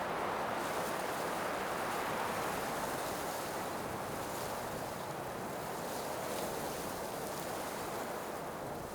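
Blizzard wind blowing hard, a steady rushing noise that eases slightly toward the end.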